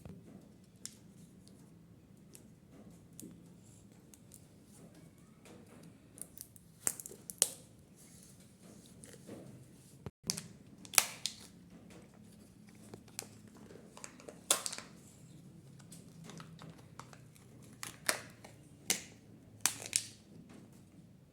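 Hands handling the plastic packaging of a Kinder Joy: scattered crinkles, rustles and sharp clicks of the foil wrapper and plastic capsule being torn and opened, some louder snaps among quieter rustling.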